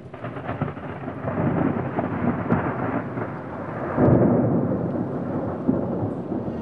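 Thunderstorm sound effect: rain with rumbling thunder, a dense crackling hiss that swells louder about four seconds in.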